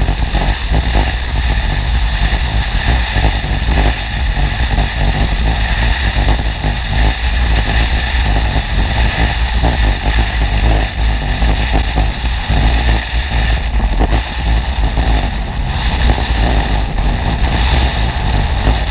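Wind rush and engine sound from a BMW R1150GS Adventure's boxer twin riding at speed down a corrugated dirt road. Wind buffets the bike-mounted microphone, with steady small jolts from the road.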